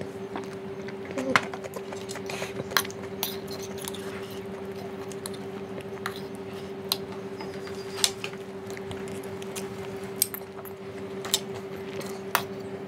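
Metal fork and spoon clinking and scraping on a plate of noodles: about nine sharp clicks spread through, over a steady low hum.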